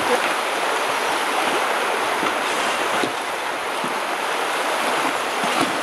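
Small stream rushing steadily over rocks in shallow rapids.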